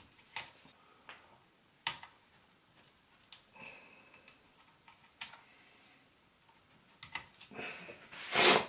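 Sparse small plastic clicks and taps as the small cable plugs on the side of a graphics card are worked loose, followed near the end by a louder burst of handling noise.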